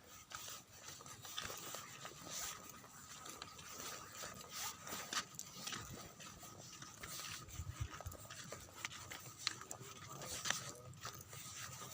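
Footsteps in flip-flops scuffing and crunching on a loose, dusty gravel trail, an irregular run of small scrapes and clicks on a slippery descent.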